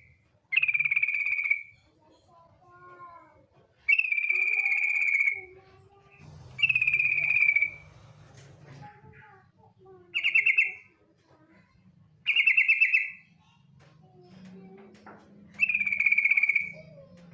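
Female yellow-vented bulbul (trucukan) calling: six loud, fast-trilled calls, each lasting about a second and a half, with softer warbling notes between them. This is the female's call used to lure males into singing.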